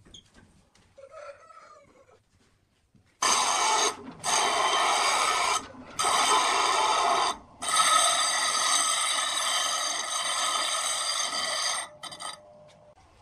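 A flat steel tool being ground against the spinning wheel of a bench grinder, throwing sparks. The harsh grinding starts about three seconds in, breaks off briefly a few times and stops near the end.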